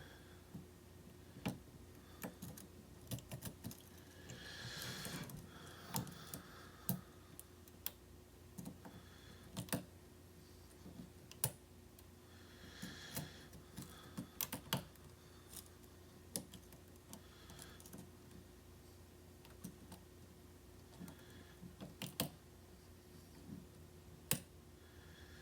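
Lock picking on a challenge lock: faint, irregular small clicks and ticks of the pick and tension wrench against the pins and core, with a couple of brief scraping sounds.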